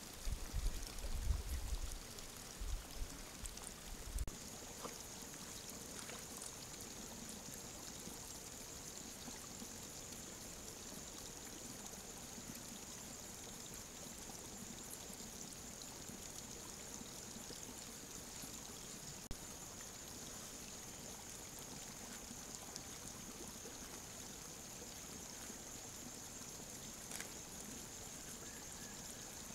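Steady outdoor hiss picked up by a trail camera's microphone, with a constant thin high-pitched whine from about five seconds in. A few low thumps in the first seconds.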